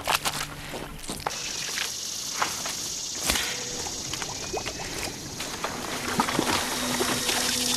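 Feet splashing through shallow marsh water in a few quick strides, followed by a steady high hiss that slowly grows louder, with a low steady hum coming in near the end.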